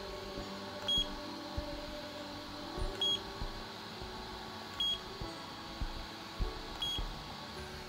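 Murang IPL hair removal handset beeping as it fires its pulses, set to its second intensity level: four short, high beeps about two seconds apart, over a steady low hum.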